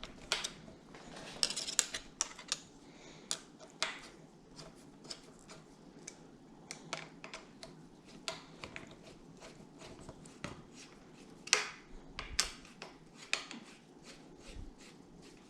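Small metal clicks and clinks as bolts are worked by hand into a bicycle stem, irregular and scattered, with two louder clinks about three-quarters of the way through. The bolts are being fiddly to start.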